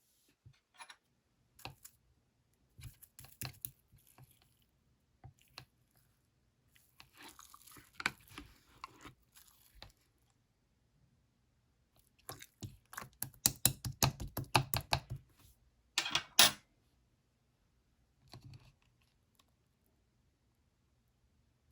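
Slime being handled, pressed and squished, giving scattered crackly clicks and squishes in short clusters. A fast, dense run of clicks comes just past the middle and is the loudest part.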